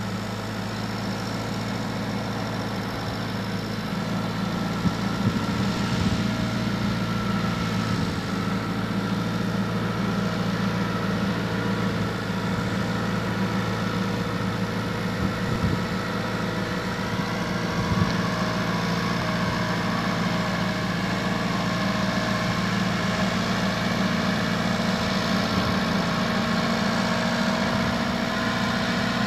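Schiltrac transporter's engine running steadily as the machine drives slowly across a steep slope, with a few light knocks; its note creeps up slightly in the second half.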